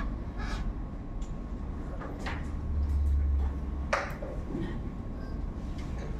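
Weighted chess pieces being set down and adjusted on a wooden board: a few sharp clicks spread through the seconds, the sharpest about four seconds in. Under them is a steady low hum, with a low rumble for about a second in the middle.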